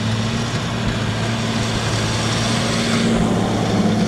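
New Holland T7 190 tractor engine running steadily under load while pulling a Horsch disc harrow through stubble, growing slightly louder as the tractor nears.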